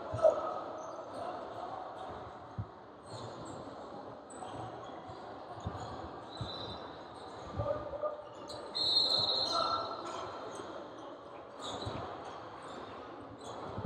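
A basketball bouncing on a hardwood gym floor in scattered thumps, with voices in an echoing gym. About two-thirds of the way through there is a brief high steady tone lasting about a second.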